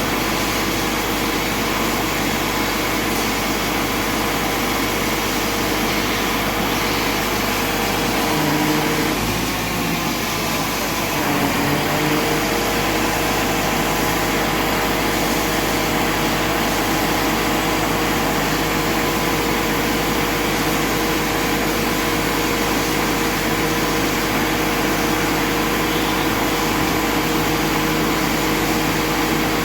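Mobile crane's engine running steadily, with a constant hum and whine; about nine seconds in its tone dips and shifts for a few seconds, then settles back.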